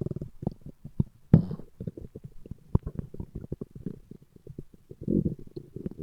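A man's stomach growling and gurgling: a run of quick low gurgles and pops, a louder gurgle about a second and a half in, and a longer, pitched growl near the end.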